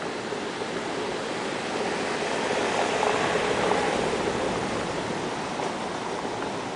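Steady rushing background noise that swells and then eases off around the middle.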